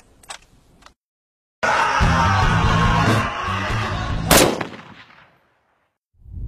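Film soundtrack music, then a single loud rifle shot about four seconds in, its tail dying away over the next second.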